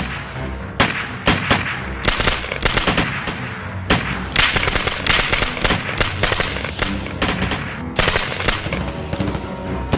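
Sustained rifle and machine-gun fire in a jungle battle scene: sharp shots and short bursts, several a second at an uneven pace, over a film music score.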